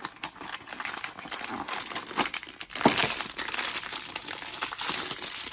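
Blind-box packaging being handled and opened: a crinkly wrapper crackling and tearing, with small clicks and a sharper snap about three seconds in.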